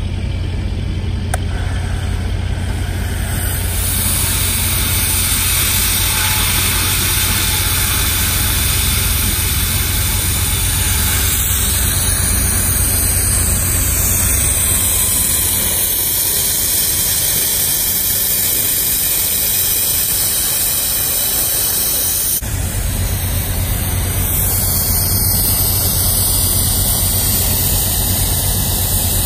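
Oxy-fuel cutting torch on a pipe beveler hissing steadily as it cuts a bevel into 10-inch schedule 80 steel pipe; the hiss gets louder a few seconds in as the cut gets going. A steady low engine hum runs underneath, with a brief break about two-thirds of the way through.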